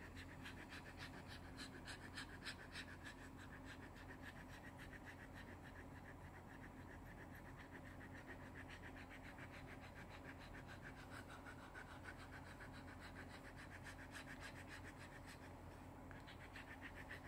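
Shetland sheepdog panting, faint, rapid and steady, with its mouth held open.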